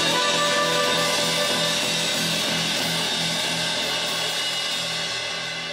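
Live blues band playing: electric guitars and bass with harmonica over drum kit and a cymbal wash, held on sustained notes and fading down slowly.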